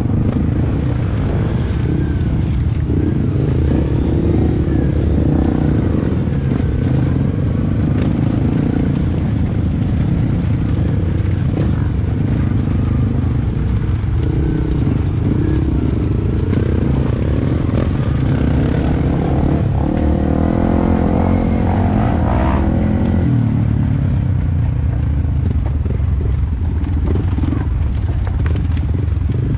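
Yamaha WR155 single-cylinder four-stroke trail-bike engine running at low speed on a dirt trail, heard close up from on the bike. The revs rise and fall briefly about twenty seconds in as the throttle is worked.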